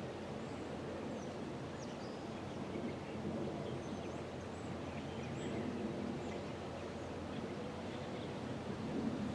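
Outdoor background rumble with small birds chirping briefly now and then.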